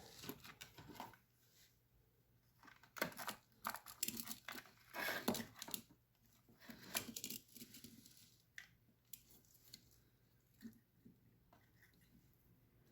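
Faint, scattered rustling and clicking of hands handling parts and wires, over a faint low steady hum.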